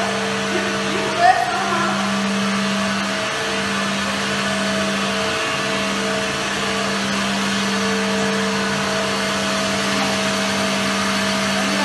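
Brewery machinery running steadily, pumps and a cooling unit: a constant mechanical whir with a steady low hum and a couple of fainter higher tones.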